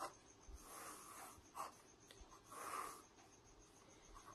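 Pen on notebook paper, faint: two longer scratching strokes about two seconds apart as a box is drawn around a written formula, with a light tap near the start.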